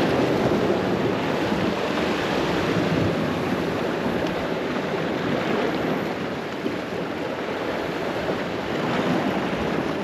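Sea waves washing and breaking against rocks, a steady rush of surf, with strong wind buffeting the microphone.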